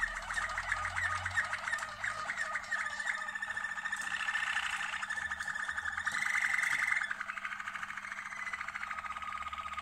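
Domestic canary song: a run of rapid repeated notes, then long rolling trills held at one pitch and then another, dropping to a lower trill about seven seconds in.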